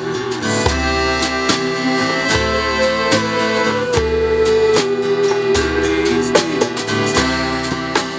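Live acoustic folk-rock band playing: a strummed acoustic guitar and a piano accordion hold the chords. A djembe played by hand and a small snare drum struck with a stick keep a steady beat. Women's voices sing a held, gliding melody over them.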